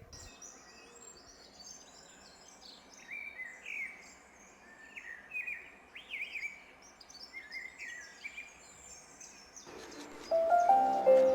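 Small birds chirping and twittering in quick, repeated short phrases over a faint steady outdoor background. About ten seconds in, music with chime-like notes comes in over it.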